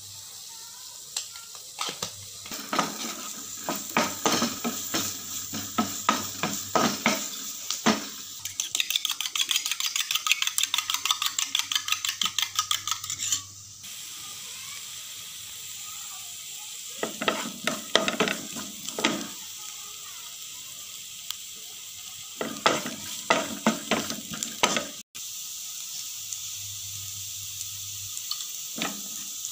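Chopped onion and green chilli sizzling in oil in a frying pan, stirred with a wooden spatula that scrapes the pan in bursts. In the middle the stirring becomes a fast, even run of about four strokes a second.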